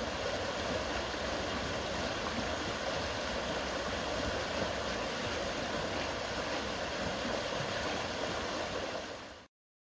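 Shallow rocky stream rushing over stones in a small riffle, a steady rush of water that cuts off abruptly near the end.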